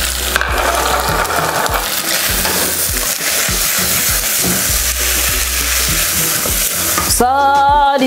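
Minced beef frying and sizzling in its own fat in a metal pot, stirred and scraped with a wooden spoon through freshly added sliced onion. A singing voice comes in near the end.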